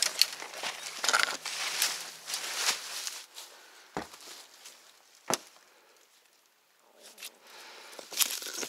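A person pushing on foot through dense undergrowth: leaves rustling and dry twigs crackling underfoot, with two sharp twig snaps about four and five seconds in, a short quiet pause, then more rustling near the end.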